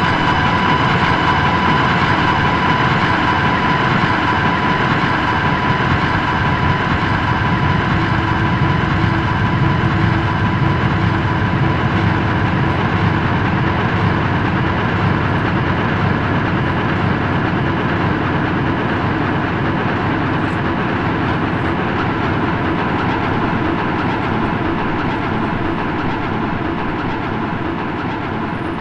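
A loud, steady mechanical rumble with several held tones above it, easing down slowly over the second half.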